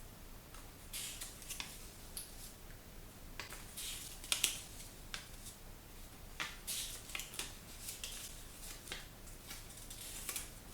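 Paper booklets and packaging being handled, making soft, irregular rustles and crinkles with a few sharper ones scattered through.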